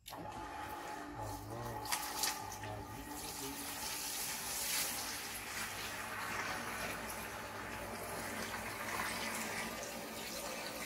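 Water from a garden hose pouring into a plastic tub, a steady splashing fill that starts suddenly.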